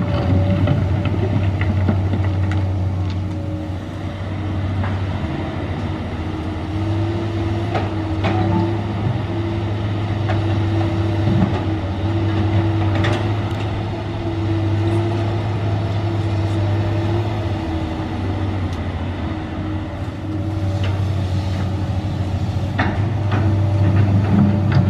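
Komatsu PC200 hydraulic excavator working: its diesel engine drones steadily under load, with a hydraulic whine that swells and fades as the arm and bucket move. Scattered short knocks and clanks of the bucket and rock come through several times.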